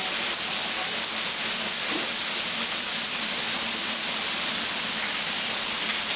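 Steady heavy rain falling onto standing floodwater, an even, unbroken patter.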